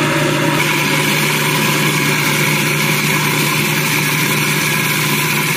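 Cuisinart food processor running steadily, its blade chopping and blending herbs, habanero, olive oil and lemon juice into green seasoning. A higher whine joins the motor hum about half a second in.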